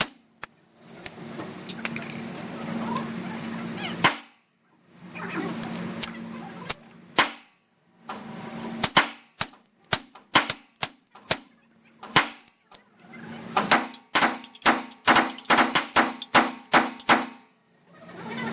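Shots from an AR-15 with a .22 LR conversion firing subsonic rounds: a few single shots spaced seconds apart, then a fast string of shots about halfway through as the rifle cycles the subsonic ammunition.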